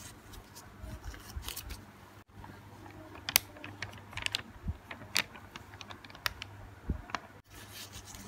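Gloved hands handling a plastic food wrapper and food on a plate: a scatter of small sharp clicks and crinkles, over a faint low hum. It cuts out abruptly twice.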